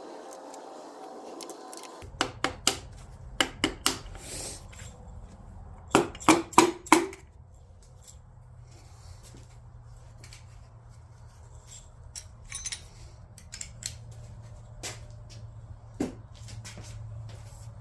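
Sharp metallic clinks and taps of hand tools and engine parts being handled, in quick clusters about two and six seconds in, then scattered single knocks. A low steady hum runs underneath.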